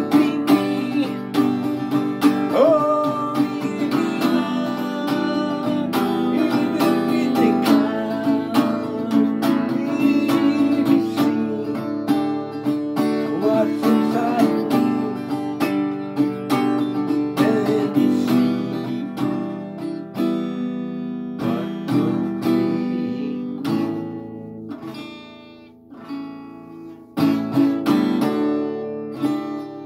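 Acoustic guitar strummed steadily, chords ringing. The playing fades well down about two-thirds through, then loud strums start again near the end.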